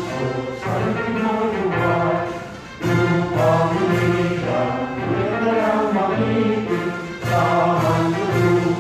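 Orchestral music with a choir singing.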